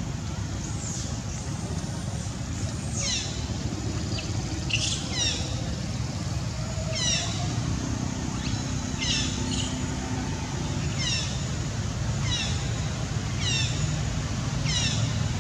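High-pitched squeaky animal calls, each a quick cascade of falling notes, repeated every second or two. A steady low rumble runs underneath.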